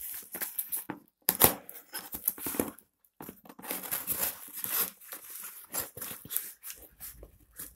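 Scissors slitting and tearing the plastic packing tape on a cardboard shipping box, in irregular scraping, tearing bursts with short pauses and one sharper snap about a second and a half in.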